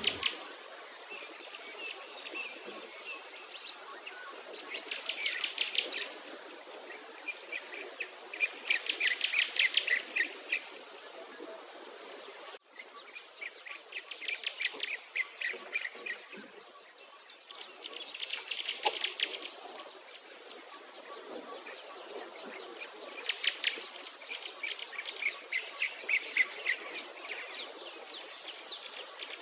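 Insects trilling in rapid pulsing bursts of a second or two that recur every few seconds, over a faint, high, steady whine. A brief break in the sound falls near the middle.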